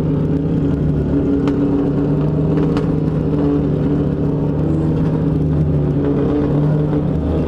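Dodge Neon race car's four-cylinder engine running at steady revs, heard from inside the car, its pitch rising a little at the start and then holding even, with a couple of faint clicks.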